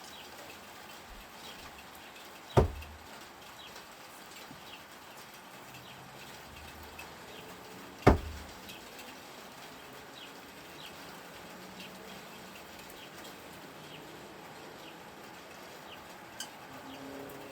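Two sharp impacts about five and a half seconds apart, each a thrown no-spin screwdriver striking the target. Faint bird chirps in the background.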